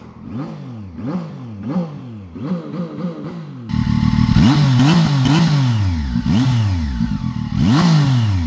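A Zontes 703F's 699 cc three-cylinder engine being revved at standstill in a run of quick throttle blips, each rising and falling back, about two a second. It gets clearly louder about four seconds in. The revs are capped at 6,000 rpm by a soft limiter while the bike is new and unrun.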